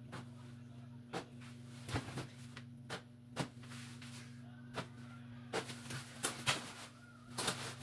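Clothes being handled and dropped into the plastic tub of a top-loading washing machine: irregular soft knocks and clicks, more frequent in the second half, over a steady low hum.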